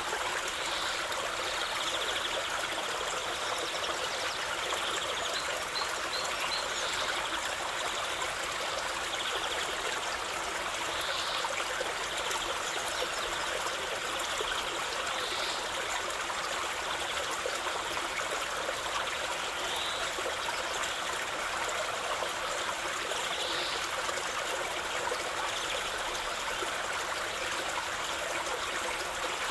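A stream of water running and trickling steadily, with faint brief high chirps every few seconds.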